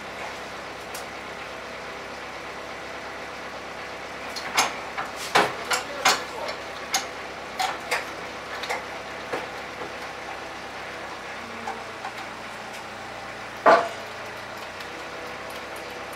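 Irregular sharp metallic clicks and clanks, about a dozen between roughly four and ten seconds in, then one loud knock near the end, from hands working at a walk-behind stacker's handle and frame. A steady hum runs underneath.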